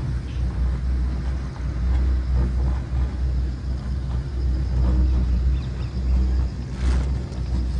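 Wind buffeting the microphone on an open ropeway chair ride: a loud, unsteady low rumble that swells and dips. A brief sharp noise about seven seconds in.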